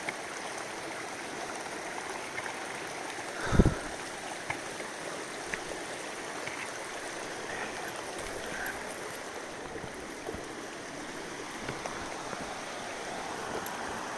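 Snowmelt stream rushing steadily over rocks. A single loud thump comes about three and a half seconds in, with a few faint knocks.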